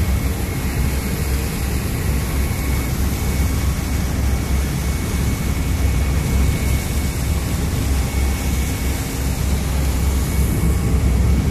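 A small boat's engine running with a steady low drone, with water rushing and splashing between the boat and a ship's hull.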